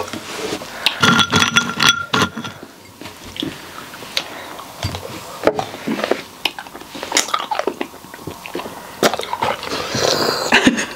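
Close-up mouth noises of a person chewing and biting, with irregular wet clicks and smacks and some short vocal sounds.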